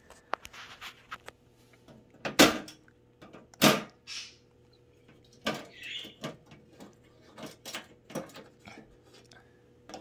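Latch clips on the housing of a VEVOR all-in-one diesel air heater being pulled open, with a scattered run of clicks, knocks and handling rattles against the case; the two loudest knocks come about two and a half and three and a half seconds in.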